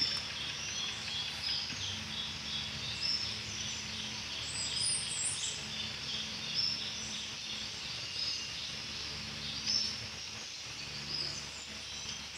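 Outdoor night ambience: many short, high chirps from insects repeating without a break, with a higher trill recurring every several seconds, over a low steady hum.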